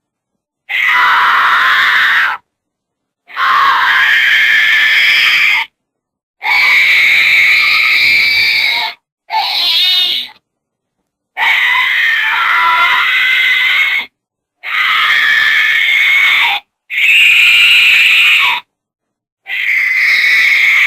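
Goats screaming in a string of eight separate loud, human-like bleating screams, each lasting one to three seconds, cut apart by short gaps of dead silence.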